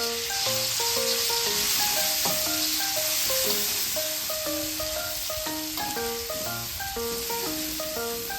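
Food sizzling as it fries in a hot pan, a steady hiss, under background music with a melody of short notes.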